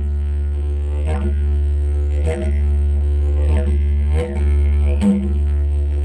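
Didgeridoo playing a continuous low drone with rich overtones, broken by short rhythmic accents about once a second that briefly shift its tone.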